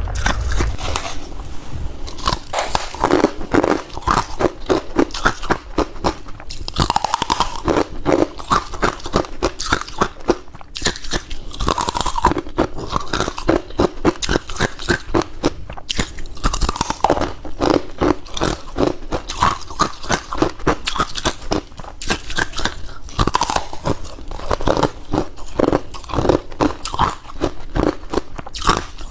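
A person biting and chewing crunchy humidifier-grown freezer frost, heard close up. A fresh crunchy bite comes every five seconds or so, each followed by a fast, steady run of chewing.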